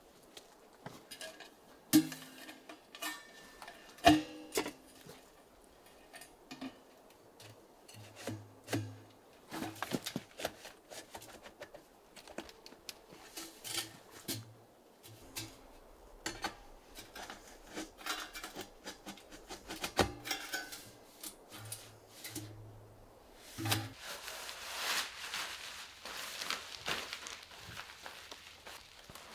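Irregular knocks and clinks of hard objects being handled, several with a brief low ring, then a few seconds of rubbing, scraping noise near the end.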